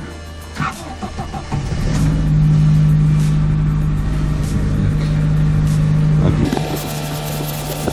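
Lada Nadezhda (VAZ-2120) engine starting on a frosty morning, then running at a steady fast cold idle, heard from inside the cabin. The sound eases a little about six and a half seconds in.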